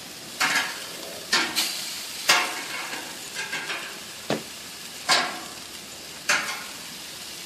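Metal tongs clinking and scraping against a gas grill's wire rack as grilled pineapple rings are turned, several sharp clinks at uneven gaps. Under them runs a steady sizzle of food cooking on the hot grill.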